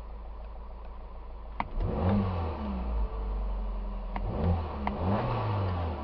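A 2008 VW Passat's turbocharged 2.0-litre four-cylinder idling, then revved twice, from a bit under two seconds in and again about four seconds in, the pitch rising and falling back each time.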